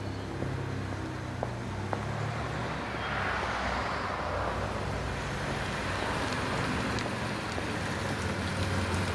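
A car driving up a street toward the listener, its engine running with a steady low hum under tyre noise, growing slightly louder near the end.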